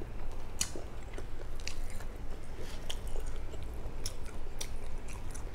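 A person chewing food close to the microphone: irregular wet mouth clicks and small crunches, several a second.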